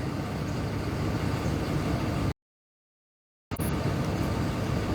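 Steady outdoor background rumble with hiss and no distinct events. It drops to dead silence for about a second a little past two seconds in, then resumes.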